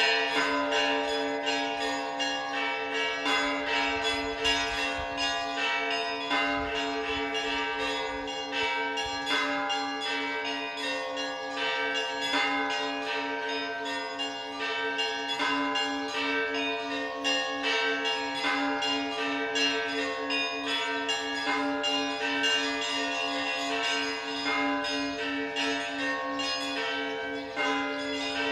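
Orthodox church bells ringing in a continuous peal: several smaller bells struck rapidly, several strokes a second, over the steady hum of larger bells.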